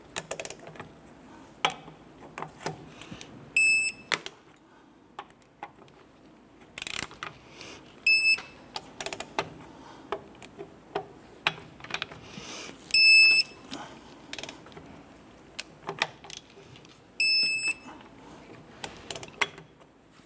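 Electronic torque wrench giving a short high beep as each lug nut reaches the set 100 foot-pounds: four beeps about four to five seconds apart. Between the beeps come sharp clicks and short rasps of the wrench's ratchet and the socket on the nuts.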